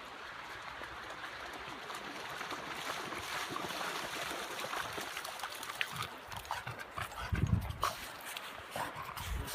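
A French bulldog making small close-up noises over a steady hiss of sea and wind. In the second half there are scattered clicks and a few low thumps.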